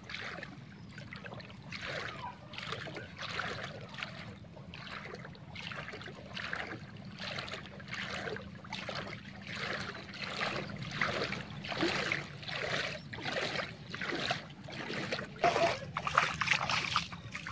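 Footsteps splashing through shallow floodwater covering a path, at a steady walking pace.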